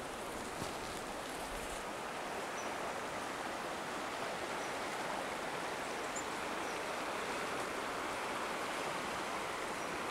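Goat River running over a shallow stony bed: a steady rushing of flowing water.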